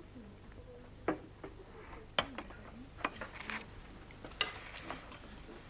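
Scattered sharp clinks and taps of tableware, about half a dozen at uneven intervals, over a faint murmur of voices.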